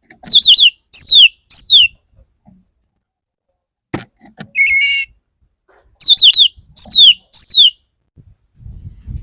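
Male Oriental magpie-robin singing: two bouts of three loud, falling whistled phrases, with a short buzzy note held on one pitch between them.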